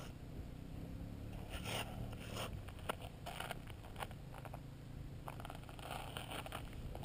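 Ice-fishing reel being cranked in short scratchy bursts as a fish is played on a bent rod, with scattered small ticks and a steady low rumble underneath.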